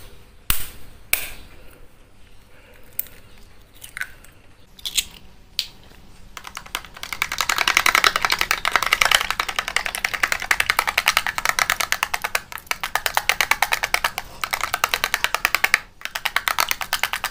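A raw egg cracked and then beaten with a small metal spoon in a plastic container. A few separate knocks come in the first six seconds as the egg is cracked, then a long run of rapid, even clicks as the spoon whisks the egg, with a short pause near the end before it resumes.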